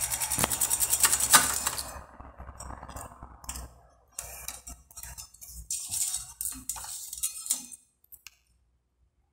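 Fast, even ticking for about two seconds, then scattered clicks and light clatter as the Akai GX-4000D reel-to-reel deck's keys and controls are worked, falling silent near the end.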